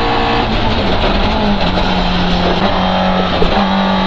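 Rally car's engine running hard at speed, heard from inside the cabin, over steady road and wind noise. The engine note changes partway through as the car shifts down from sixth to fifth gear.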